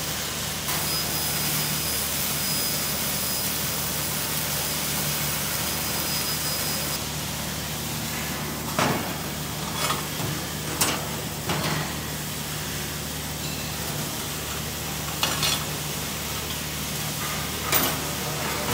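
Laser tube-cutting machine cutting a rectangular steel tube: a steady high hiss with a thin whistle, which stops abruptly about seven seconds in. Then several sharp metallic clanks as the cut steel tube is handled on a steel table, over a steady low machine hum.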